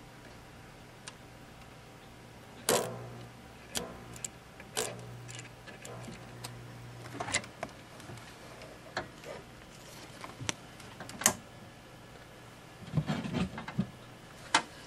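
Scattered sharp clicks and knocks of hands and tools working on a vintage tube TV chassis, with a few duller thumps near the end, over a faint steady low hum.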